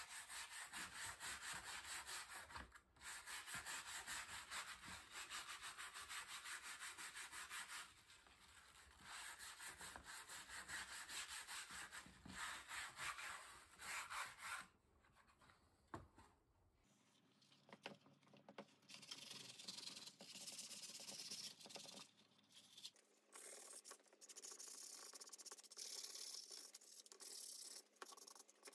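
Soft wire brush scrubbed back and forth over the head of a 1950s fireman's axe to clean off rust, a fast run of rasping strokes with a few short pauses. About two-thirds of the way in the brushing turns lighter and quieter.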